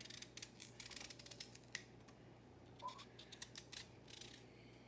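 Faint clicks and scrapes of a kitchen knife cutting pieces off a yam held in the hand, a run of light ticks that thins out after the first couple of seconds.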